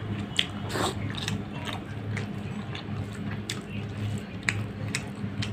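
Close-miked eating sounds: wet mouth clicks and smacks while chewing fish and rice, together with sticky squishes of fingers working rice into curry gravy. The clicks come irregularly, about two a second, over a steady low hum.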